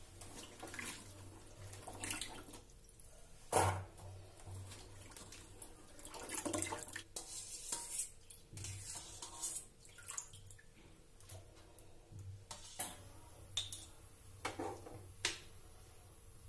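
Chopped vegetables being washed in a steel bowl: water sloshing, with scattered clinks and knocks of steel bowls and a ladle. The loudest knock comes about three and a half seconds in.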